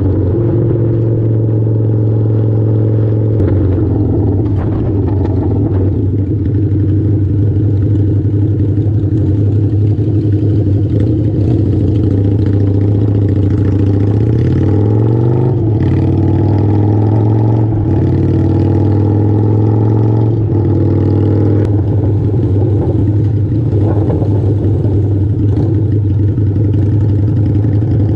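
Harley-Davidson V-Rod's V-twin engine running steadily under way, its pitch rising about halfway through as it picks up revs and then settling again.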